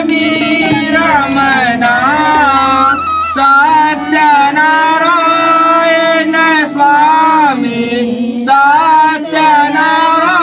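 Devotional Hindu aarti song: a solo voice sings a sustained, ornamented melody over musical accompaniment.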